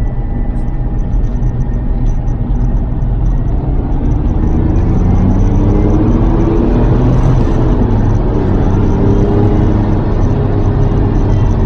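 Lotus Carlton's twin-turbo 3.6-litre straight-six running on the road, with a steady low rumble of road and drivetrain noise. About four seconds in the engine grows louder, its pitch rising and falling as the revs change.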